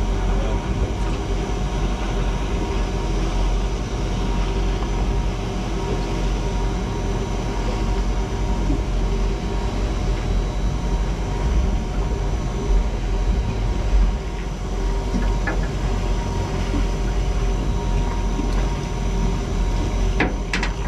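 Mini jet boat's engine idling steadily, with a deep rumble and a constant hum. A couple of sharp knocks near the end.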